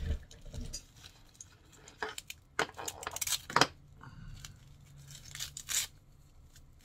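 Several short, irregular tearing and rustling sounds as a black fabric strap is handled and pulled apart by hand.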